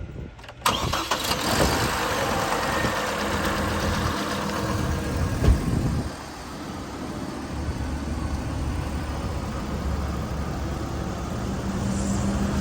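GMC Canyon pickup's engine started up just after an oil change, running loudly at first and settling to a steadier idle about six seconds in.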